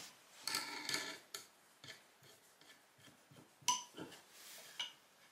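Steel hex nuts being turned by hand along a threaded steel rod, with light scraping and a few small metallic clicks and clinks. The sharpest clink comes about three and a half seconds in.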